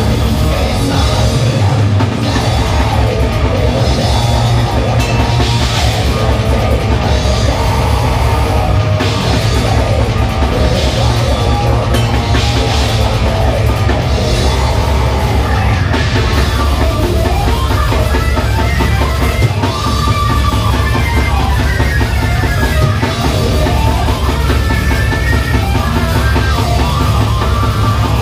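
A death metal band playing live and loud: distorted electric guitar and bass guitar over very fast drumming with rapid, continuous kick-drum strokes.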